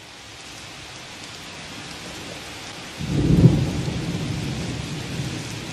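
Steady rain hiss that fades in, with thunder breaking in suddenly about three seconds in and rumbling on beneath the rain.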